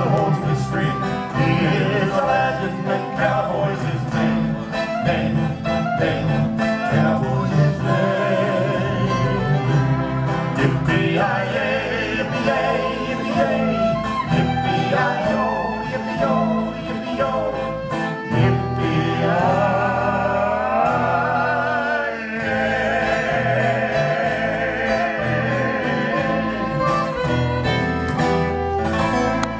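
Live cowboy-style Western vocal harmony singing over acoustic string-band backing with guitar, the closing refrain of the song. About two-thirds of the way through the voices hold a long wavering note, and the music stops suddenly at the very end.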